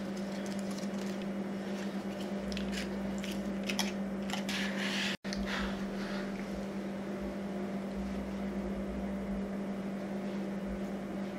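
Paper wrapper rustling as it is pulled off a drinking straw, and small clicks as the straw is pushed through a plastic cup lid, over a steady low hum. The sound cuts out for an instant about five seconds in.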